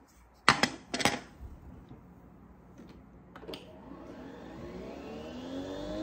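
Nespresso Vertuo coffee machine: two sharp clacks as its lid is shut over a capsule. After a faint clink of ice in a glass, its motor starts spinning the capsule to brew, a whine rising in pitch and getting louder over the last two seconds.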